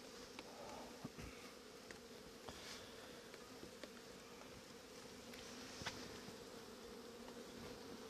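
Honey bees from an opened hive buzzing as a faint, steady low hum, with a few light clicks of the wooden hive frames and boxes being handled.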